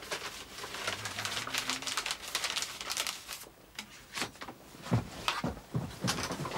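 A sheet of paper rustling and crinkling as it is handled and folded, a dense run of rustles for the first few seconds, then a few separate sharp rustles and clicks later on.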